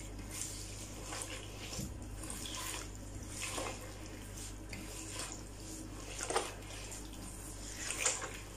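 A hand squeezing and smearing a soft butter-and-oil mixture against a terracotta bowl: irregular wet squelches and scrapes, with a couple of sharper smacks near the end.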